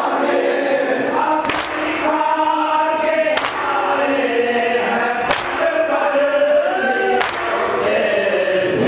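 A crowd of men chanting a noha (Shia mourning lament) together. A sharp collective beat lands about every two seconds, the rhythm of hand matam (chest-beating).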